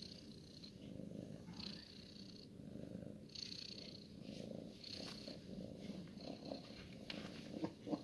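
A domestic cat purring steadily while being stroked, with a few short soft brushing sounds of the hand over its fur and a few light taps near the end.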